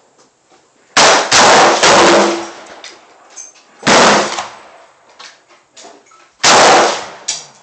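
AK-47 rifle firing in 7.62×39mm, a series of loud shots with a ringing decay after each: two or three in quick succession about a second in, then single shots about two and a half seconds apart.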